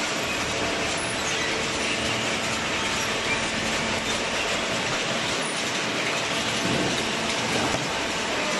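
Industrial cardboard shredding and baling machinery running: a steady, dense mechanical rattle with a faint hum under it.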